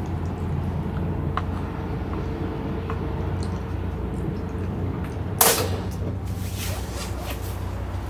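Low, steady rumble of strong wind, with one loud, sharp clack about five and a half seconds in and a few faint clicks.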